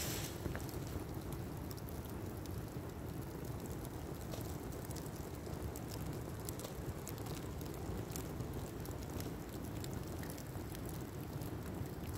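Fire of dry leaves and debris burning, with a steady low rushing noise and frequent small crackles and pops throughout.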